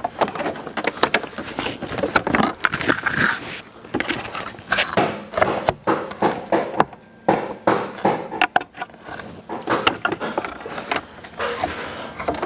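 Hard plastic and metal car parts clicking, knocking and rattling as the front end of a car is pulled apart by hand, with a short pause about seven seconds in.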